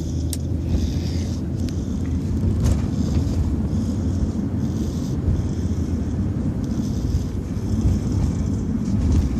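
Baby snoring in its sleep, with breathy sounds coming and going every second or two over a steady low rumble.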